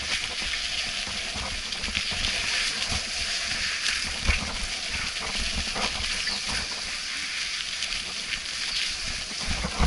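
Mountain bike riding fast over a wet, muddy forest trail: a steady rush of tyre and riding noise, broken by frequent low knocks and rattles as the bike jolts over bumps, the sharpest just before the end.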